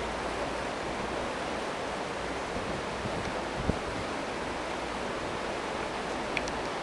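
Steady rushing noise of wind on the microphone, with a low rumble underneath and one short knock about three and a half seconds in.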